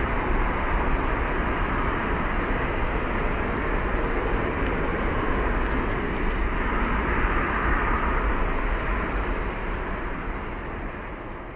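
Boeing 747-400F freighter's four jet engines at takeoff thrust as it lifts off and climbs away: a steady deep rumble that begins to fade about nine seconds in.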